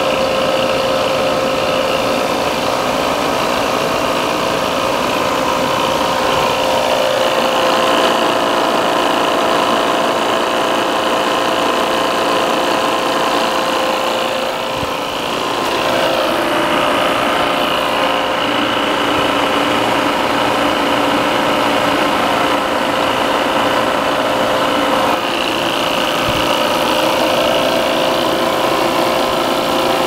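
Appion G5 Twin refrigerant recovery machine running under load, its twin-cylinder compressor and motor giving a steady hum with a constant pitched whine as it pulls refrigerant into the recovery tank.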